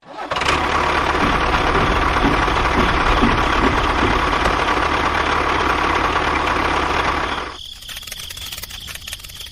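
A motor running steadily, then cutting off sharply about seven and a half seconds in, leaving a fainter crackling background.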